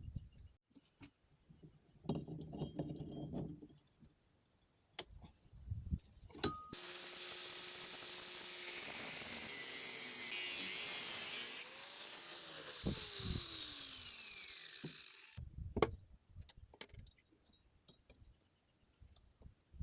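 Angle grinder switched on suddenly, running at speed for several seconds with a high whine and hiss, then falling in pitch as it winds down and stops. Metallic clicks and knocks come before and after it.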